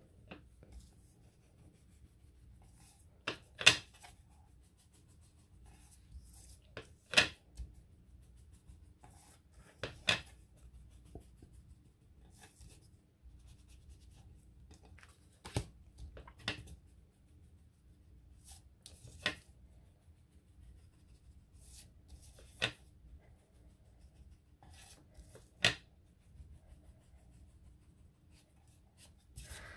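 Paper edges being inked with an ink pad: scattered short, sharp taps and light rubbing every few seconds over a faint steady hum.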